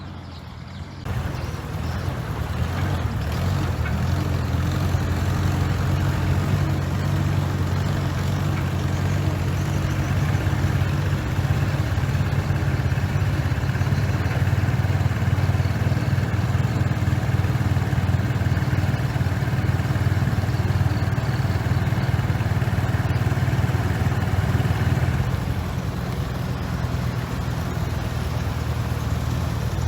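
Heavy diesel earthmoving machine running steadily under load, a deep steady engine hum with mechanical noise above it. It gets louder about a second in and eases off a little near the end.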